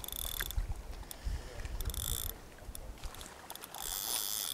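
Carp fishing reel buzzing in three short mechanical bursts, each under a second, while a hooked black carp is played close to the bank.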